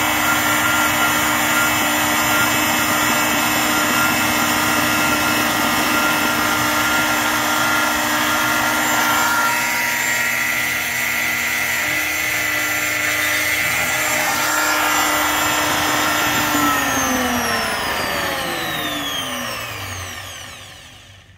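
High-speed spindle of a Stepcraft M.1000 CNC router running with a steady whine while milling a carbon fiber sheet under water. About three quarters of the way through, the whine falls steadily in pitch and fades as the spindle spins down at the end of the cut.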